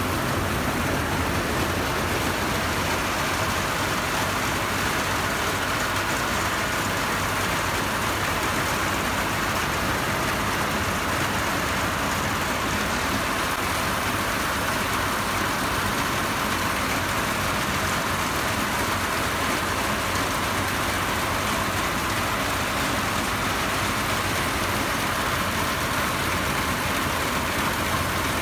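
Tân Việt engine-driven rice threshing machine running steadily as bundles of rice stalks are fed into it: a constant mechanical drone under a dense, even rushing hiss.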